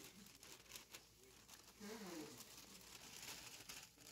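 Faint crinkling of wrapping being handled, with a quiet voice about two seconds in.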